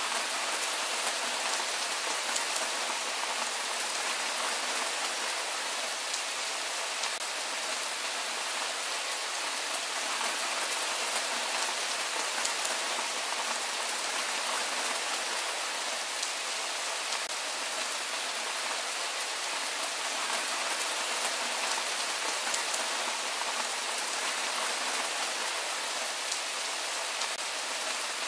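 Steady rain falling: an even hiss, strongest in the high range, with many fine drop ticks.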